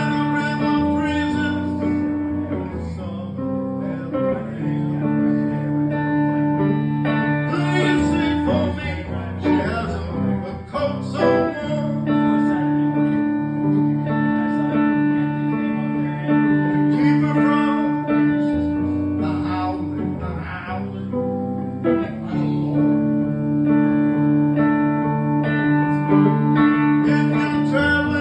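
Solo hollow-body electric guitar playing chords, held chords alternating with busier strummed passages.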